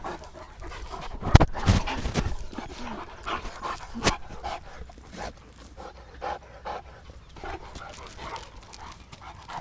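Saint Bernard dog panting in short, rapid breaths. Two sharp knocks, about a second in and about four seconds in, stand out over it.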